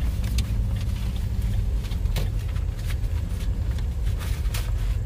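Car interior noise while driving: a steady low rumble of engine and tyres on the road, with scattered faint ticks.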